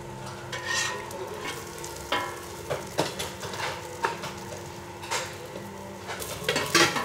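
Serving utensils clinking and scraping: a metal ladle knocking inside an aluminium pot of curry and against small ceramic bowls, then a spoon scooping sambal from a plastic tub. The clinks come about once a second, the loudest near the end, over a steady frying sizzle.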